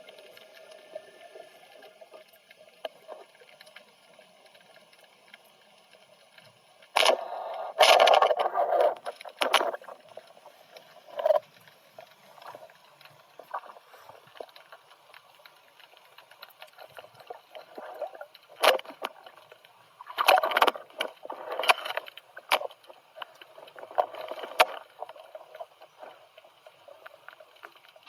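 Muffled water sounds as heard through a camera's waterproof housing during spearfishing: a faint steady background broken by several loud bursts of sloshing or bubbling, the biggest about seven to ten seconds in and again around twenty seconds in.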